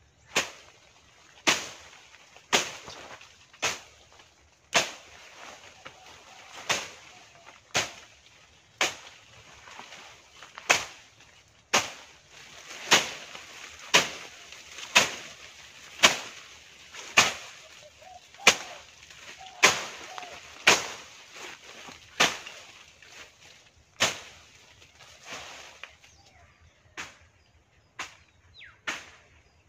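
A long blade slashing through tea bushes in sharp, regular cuts about once a second, each followed by a short rustle of leaves. The strokes break off briefly about three-quarters of the way through and come back fainter.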